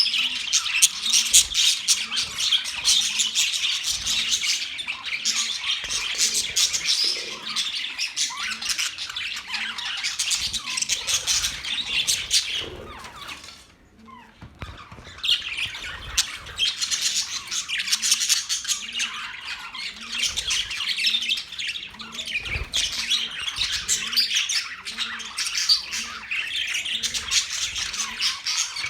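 A group of budgerigars chattering, with constant rapid chirps, warbles and squawks. The chatter fades to a brief lull about halfway through, then picks up again.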